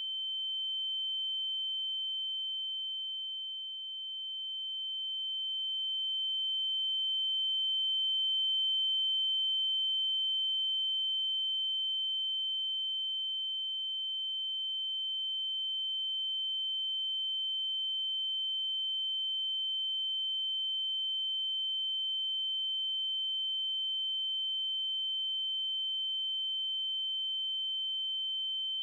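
A single steady high-pitched electronic tone, held at one unchanging pitch with nothing else heard.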